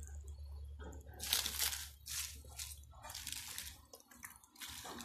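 Fresh mustard greens being pressed and stirred into pork-bone broth in a stainless steel pot: wet squishing and crunching of leaves with splashes of liquid, in several short bursts, over a steady low hum.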